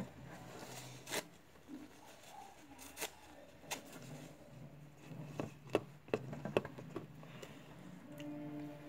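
Scattered light clicks and taps from handling slime-making materials and containers, over a faint low hum.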